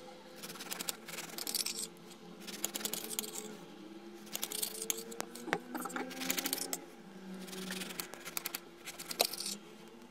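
Serrated bread knife sawing through the crust and crumb of a sponge cake in short rasping back-and-forth strokes, coming in several bursts, with an occasional click of the blade against the stone countertop.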